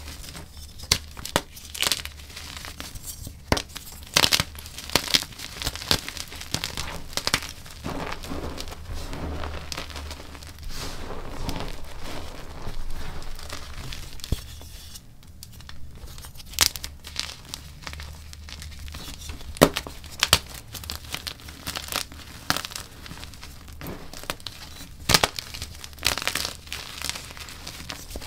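Dyed gym chalk chunks being crushed and crumbled by hand: irregular dry crunches and sharp snaps as blocks break, with a softer crumbling and powdery rustle between them.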